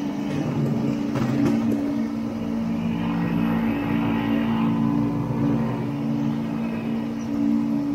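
Vintage Ski-Doo snowmobile's two-stroke engine running steadily at speed, its pitch shifting up and down slightly a few times.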